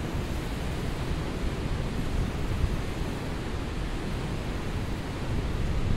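Steady rushing noise, heaviest and most uneven in the low end: wind buffeting the microphone over the rush of water in the canyon below.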